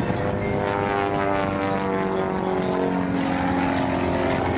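Pitts S-1S aerobatic biplane's four-cylinder Lycoming engine and propeller droning past, the pitch falling steadily as the plane passes and moves away.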